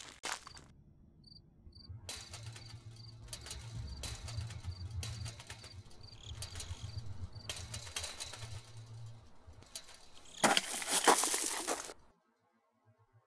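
Title-sequence sound design: a low hum with crackling and faint, evenly spaced high pips. Near the end comes a loud burst of noise lasting about a second and a half, which cuts off abruptly to silence.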